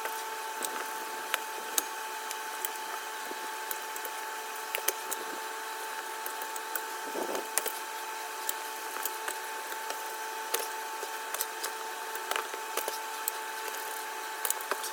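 Scattered sharp metallic clicks and knocks of tire irons and a manual tire changer working the bead of a small golf cart tire off its rim, over a steady high-pitched whine.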